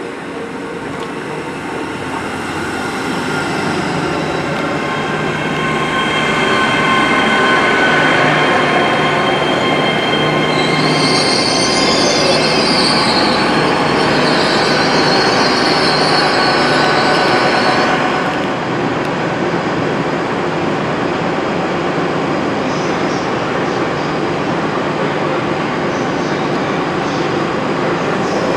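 Great Western Railway Hitachi Intercity Express Train running along the platform, the sound of the train and its wheels on the rails growing louder over the first several seconds as it draws level. From about ten seconds in, a high squeal of the wheels lasts some eight seconds before easing off.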